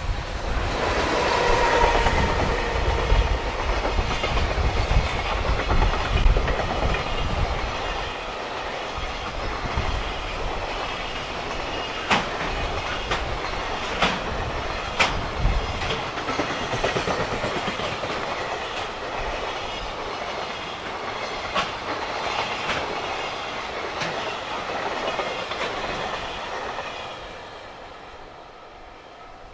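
Freight train rolling past close by: a heavy rumble in the first half, then a long string of wagons running on with clickety-clack wheel knocks over the rail joints, fading away near the end.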